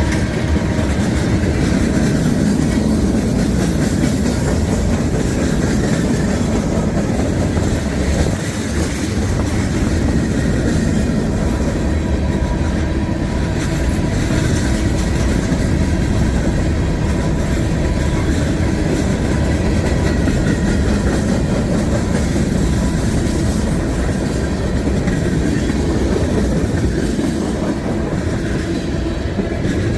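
Train cars rolling past, steel wheels clicking over rail joints in a steady, continuous rumble.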